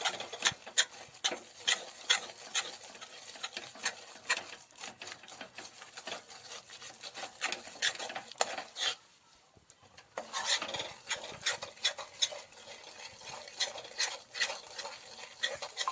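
A utensil scraping and stirring besan (gram flour) roasting in ghee in a kadhai, in quick irregular strokes. The besan is at the stage where it starts releasing its ghee. The stirring stops for about a second a little after the middle, then goes on.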